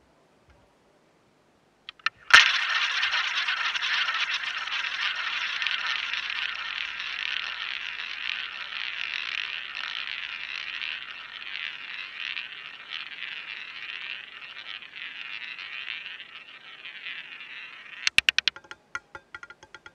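Roulette ball launched around a wooden roulette wheel with a sharp click about two seconds in, then rolling around the track in a long, slowly fading roll. Near the end it drops and bounces in a quick run of clicks and rattles as it settles into a pocket.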